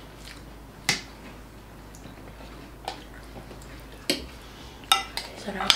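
Eating sounds at a table: quiet chewing of pancit palabok noodles, with a handful of sharp clicks of a fork and chopsticks against plates, several close together near the end.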